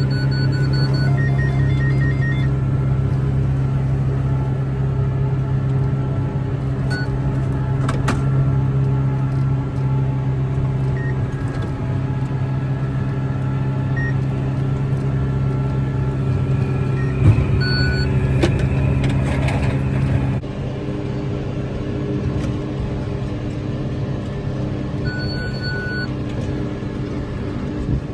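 John Deere tractor engine running steadily under load while pulling a McHale V6750 round baler, with short electronic beeps at intervals. The level drops suddenly about two-thirds of the way through.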